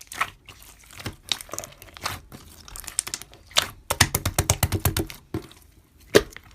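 Slime being squeezed and pressed by hand, giving a string of crackly clicks and pops. About four seconds in comes a fast run of clicks, about eight a second.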